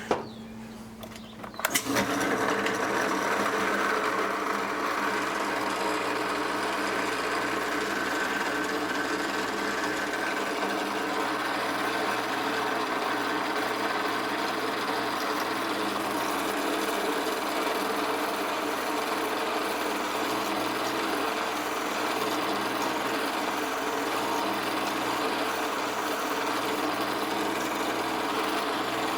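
Electric drill starting up about two seconds in and running steadily, drilling a hole through the head of a starter bolt lubricated with cutting oil.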